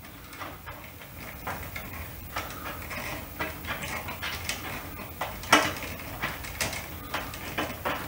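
Wires rustling, with small scattered clicks and taps, as a bundle of fluorescent light fixture wires is handled overhead; one sharper click comes about five and a half seconds in.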